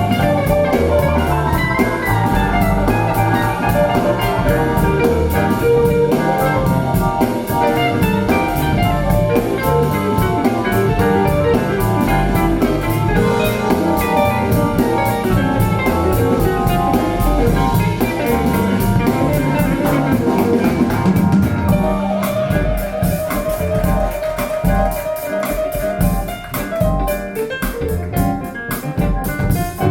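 Recorded music playing through Wharfedale Linton Heritage loudspeakers: an instrumental passage with a steady beat. About two-thirds of the way through it thins out to a held note over sparser beats.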